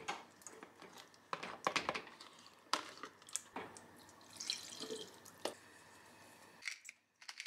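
Chopped vegetables tumbling from a metal bowl into a stainless steel pot, with a run of irregular knocks and clatters against the pot, then liquid poured from a plastic container splashing into the pot.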